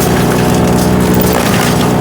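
GreenMech Arborist 150 wood chipper running while wood is fed through it, its engine steady under a constant crackling and splintering of chipped wood. The engine pitch dips briefly about one and a half seconds in as it takes the load.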